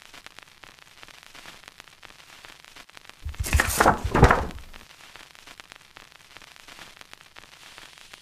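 Office printer feeding out a printed page: a single burst of roller and paper noise about three seconds in, lasting about a second and a half, with faint hiss around it.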